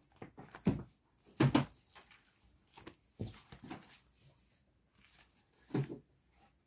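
A bagged stack of comic books being handled and shifted on a table: a few short knocks and rustles, the loudest a quick pair about one and a half seconds in.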